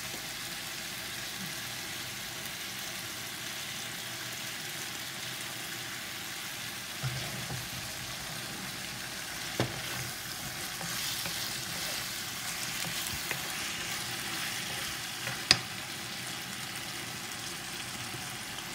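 Diced bell peppers and onions sizzling in sauce in a non-stick kadhai as they are stir-fried with a wooden spatula: a steady hiss with intermittent scraping and two sharp knocks, the second and louder one near the end.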